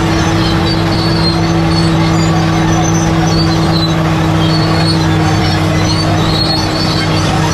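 Bulldozer's diesel engine running steadily with a constant low hum, with faint high squeaks and clinks from its tracks now and then.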